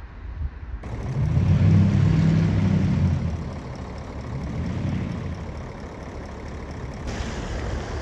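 Diesel engine of a large Towada Kanko bus pulling out and passing close by, loudest in the first few seconds, easing off, then rising again a little later.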